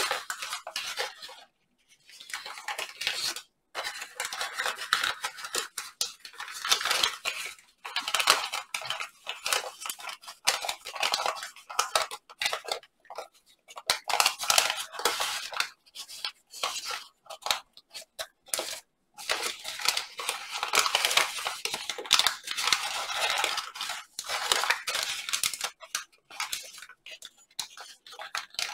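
A large sheet of origami paper crinkling and rustling in irregular bursts as it is folded and creased by hand, with short pauses between handlings.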